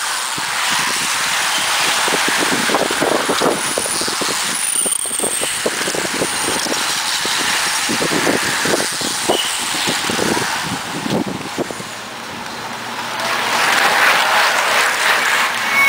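Racing bicycles sweeping past close by at speed: a steady rush of tyres and air with crackling buffets, dipping briefly and then swelling louder near the end as another group goes by.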